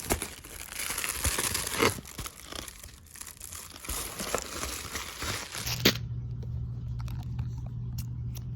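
A package's wrapping being torn open and crinkled, a dense run of tearing and crackling for about six seconds. It then cuts off suddenly, leaving a steady low hum and a few light clicks.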